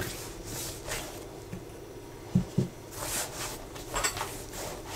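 Soft, slightly sticky yeast dough being kneaded by hand on a pastry mat: quiet soft pressing and squishing, with two dull thumps close together about halfway through.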